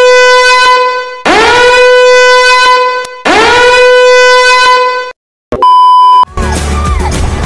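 Alarm horn sounding three times, each blast about two seconds long and sweeping up into a steady tone: a 'simp alert' meme sound effect. About six seconds in, it gives way to a short steady test-tone beep of a TV colour-bars screen.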